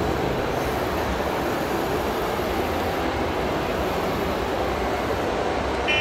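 Steady, even background din of a busy exhibition hall, with a short high electronic beep near the end.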